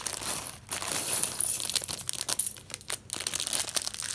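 Clear plastic bag of LEGO pieces crinkling as it is handled, with small clicks of plastic pieces, dying away near the end.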